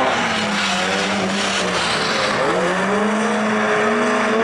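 Banger-racing cars' engines revving in a pileup. The engine pitch swings up and down and climbs again about two and a half seconds in, over a steady wash of engine and track noise.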